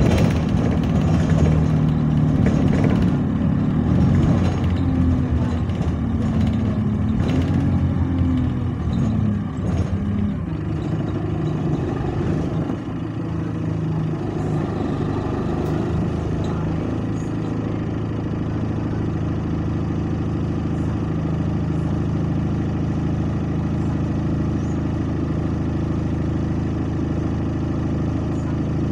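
Alexander Dennis bus's diesel engine heard from inside the saloon, running under power for the first ten seconds or so with its pitch wavering and then dropping as the bus slows, then settling to a steady idle for the rest.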